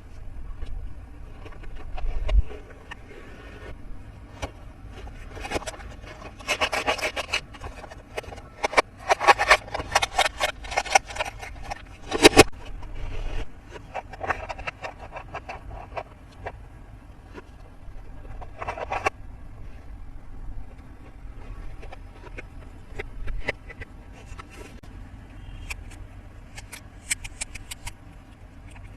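Toy playset parts and packaging being handled during an unboxing: rubbing and scraping, with bursts of rapid clicking and crackling and one sharp knock about twelve seconds in.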